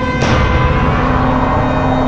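Eerie background music: sustained droning tones, with a burst of hiss about a quarter second in that fades away.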